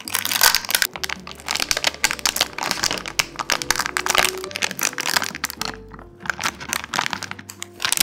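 Baking parchment crinkling and crackling as fingers peel it off a dried sheet of date paste and roll it up, in quick dense rustles with brief pauses. Soft background music plays underneath.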